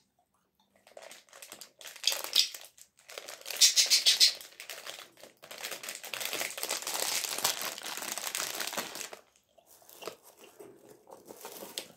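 Thin plastic food bag crinkling as it is handled: short bursts at first, then steady crinkling for about three seconds in the middle, fading to a few faint crackles near the end.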